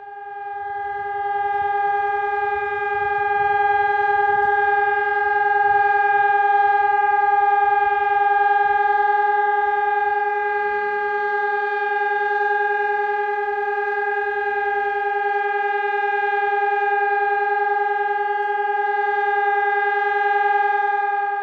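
Civil defense siren sounding a loud, steady single-pitch tone. It rises quickly to pitch at the start, then holds level without wailing, with a low rumble underneath.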